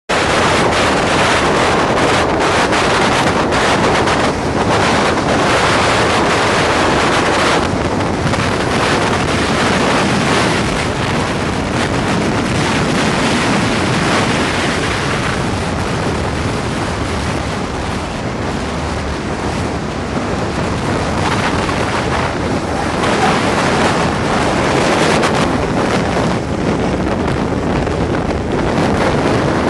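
Wind buffeting the camera microphone on a motorcycle riding at highway speed: a loud, steady rush that covers any engine sound.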